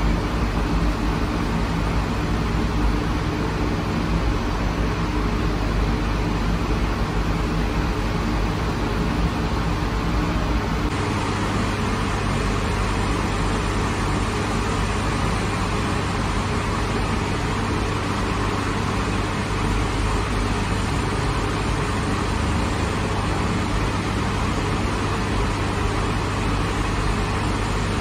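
Steady mechanical drone of a bakery oven and its machinery: a low hum with several steady tones under a rushing noise, changing slightly in tone about eleven seconds in.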